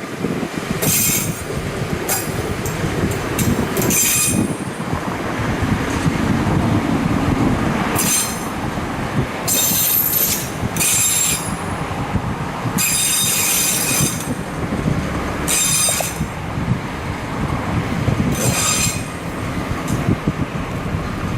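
TMC200 snow-removal motor car running along the track: a steady low rumble of engine and running gear, broken by about a dozen separate high-pitched metallic squeals from the wheels on the rails, each lasting up to about a second.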